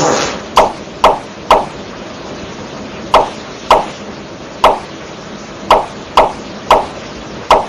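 A series of about eleven sharp wood-block-like knocks at uneven intervals, each with a short ringing tone, over a steady hiss.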